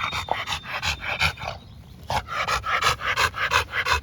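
Dog panting rapidly, about four or five breaths a second, with a brief pause about halfway through.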